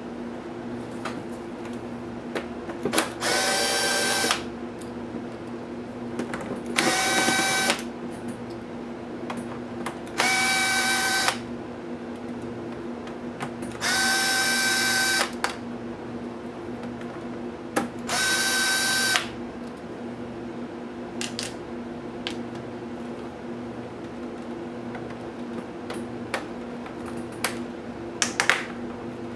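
Cordless drill/driver whining in five short runs of about a second each, backing out laptop screws. A steady low hum runs underneath, and a few light clicks come near the end.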